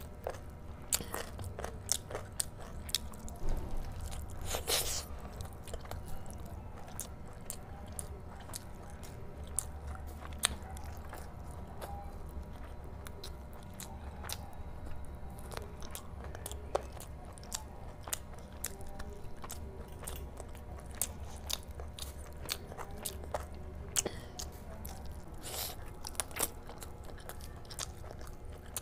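Close-miked eating: biting into and chewing curried chicken leg meat torn off the bone by hand, with frequent sharp wet mouth clicks and a few louder bites.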